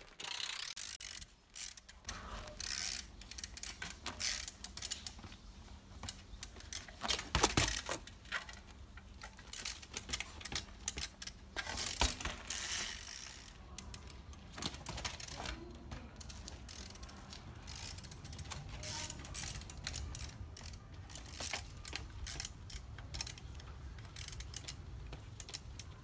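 Trials bicycle's freewheel hub ratcheting with rapid clicks as the rider pedals and hops the bike, with sharp knocks as the wheels strike the ground and ledge; the loudest knocks come about seven and twelve seconds in.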